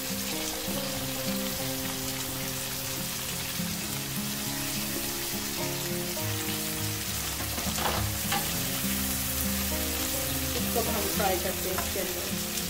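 Sliced onions sizzling steadily as they fry in hot oil in a nonstick frying pan, with a spatula stirring and clattering through them a couple of times in the second half.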